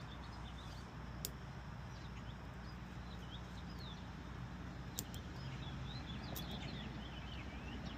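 Birds chirping faintly over a steady low background hum, with a few sharp clicks about a second in and again near the middle.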